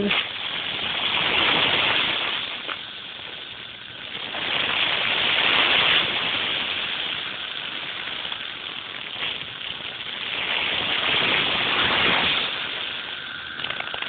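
Loud chorus of periodical cicadas in the tree canopy, a dense shrill buzz that swells and fades in waves, three times over.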